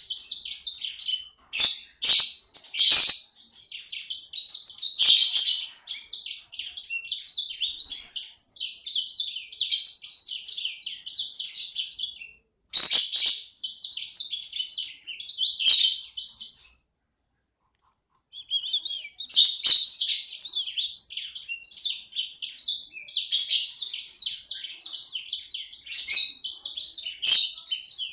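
Small pet songbird, which its owner calls a 'sanger', singing busily: long runs of rapid, high chattering and twittering phrases, with one short pause about two-thirds of the way through.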